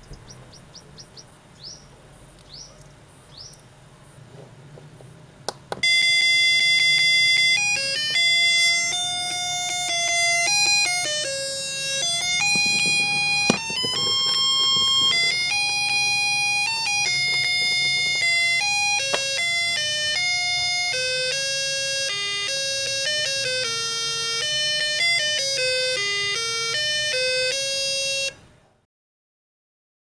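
A click about six seconds in, then a UM66T melody-IC doorbell playing an electronic tune through a small loudspeaker. The notes are buzzy and come one at a time, stepping up and down in pitch. The tune cuts off suddenly near the end.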